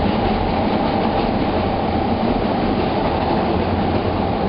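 Chicago 'L' subway train running past close by, its cars going by in a loud, steady rumble of steel wheels on rail.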